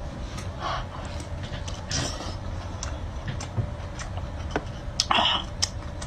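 Person eating boiled lobster claw meat: close chewing with scattered small clicks, and a few short noisy bursts, the strongest about five seconds in.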